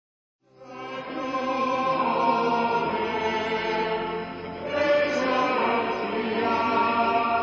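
A church congregation singing a hymn together, many voices in unison, coming in about half a second in.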